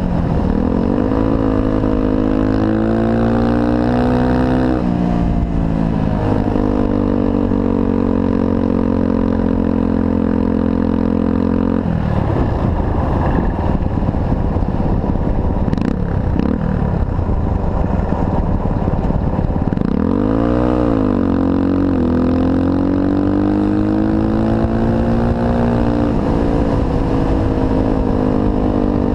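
1986 Honda 125cc dirt bike's single-cylinder engine under way, its pitch climbing as it accelerates and falling back sharply as it shifts about five seconds in. It then runs at a steady cruise, dips and climbs again around twenty seconds in, and rises once more near the end.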